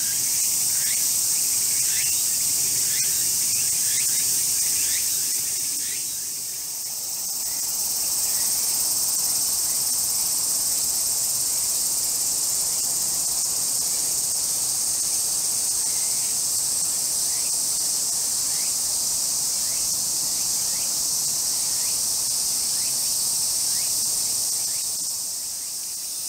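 Insects shrilling in a steady, continuous high-pitched chorus, dipping briefly about six seconds in, with a few faint short chirps above it.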